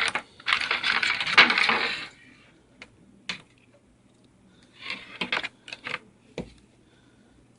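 Plastic packaging crinkling and rustling for about a second and a half, then scattered light clicks and taps from small plastic parts being handled.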